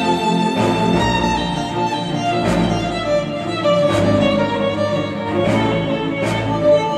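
Instrumental music led by violin and strings, with a sharp percussive hit about every second and a half.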